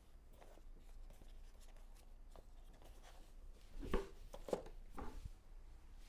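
Faint handling sounds: a few light knocks and rubs, the loudest about four seconds in, as a Shimano RC3 road cycling shoe is set back down among other shoes on the floor.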